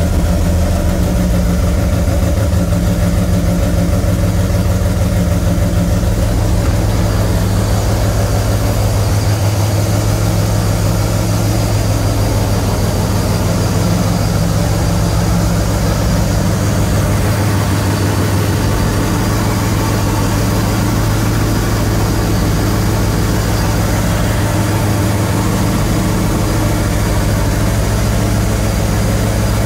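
Supercharged 408 cubic-inch stroker V8 running steadily at a fast idle of about 2,000 rpm, on its first start-up after being installed in the car.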